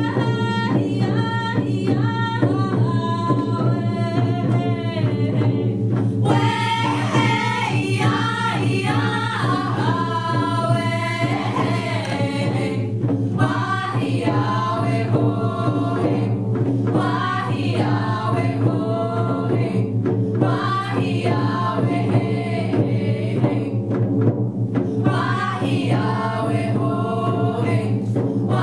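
A group of women's voices singing together over a steady beat of hand-held frame drums struck with beaters, a hand-drum healing song sung in vocables.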